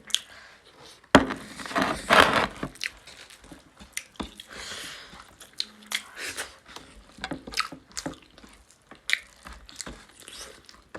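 Close-up eating sounds of a mouthful of pork, greens and rice: wet chewing and lip-smacking with many short clicks, loudest a little after a second in.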